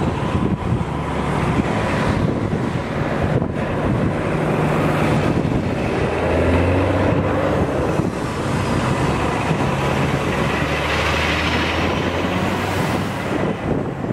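Wind buffeting the microphone over the low hum of vehicle engines, with a vehicle approaching near the end.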